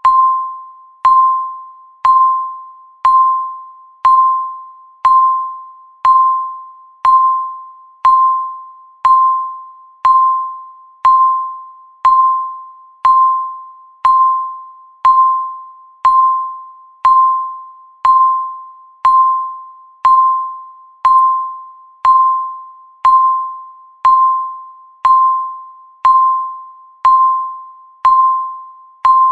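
Countdown timer's electronic beep marking each second: one clear, bell-like tone struck once a second, each fading away before the next.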